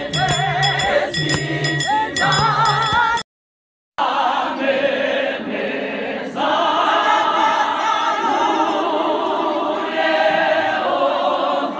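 A large women's choir singing together in harmony, with a regular percussive beat under the first three seconds. The sound cuts out completely for under a second about three seconds in, then the choir resumes singing without the beat.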